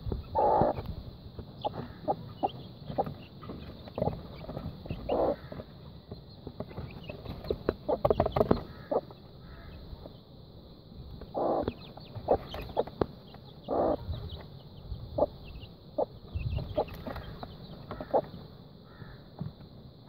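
Australorp mother hen clucking to her chicks in short, low calls a few seconds apart, with quick sharp ticks of chicks pecking grain from a plastic feed tray.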